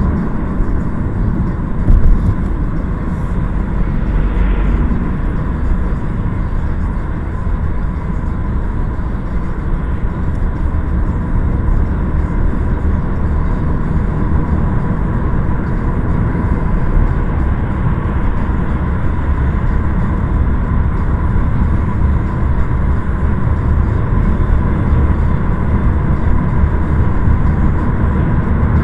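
Steady, heavy low rumble of motor vehicles with road noise and a thin constant tone, plus a single knock about two seconds in.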